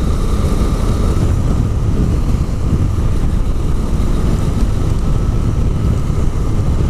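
Steady wind rush on the microphone with the Bajaj Dominar 400's single-cylinder engine running underneath while riding at a constant road speed.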